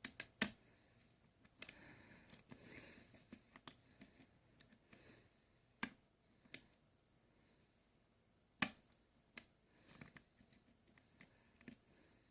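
Metal lock pick and tension wrench working the pins of a Medeco X4 lock cylinder: scattered faint clicks and light scraping as pins are lifted and set, with a few sharper clicks spread through.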